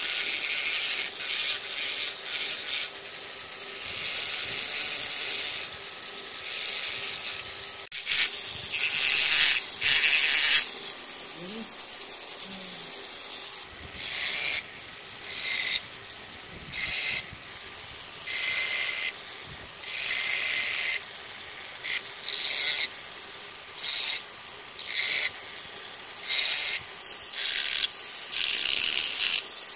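Rotary carving tool grinding into wood in short bursts. A high rasping starts and stops every second or so as the bit touches the wood and lifts off, with a longer, louder stretch of cutting about eight to eleven seconds in.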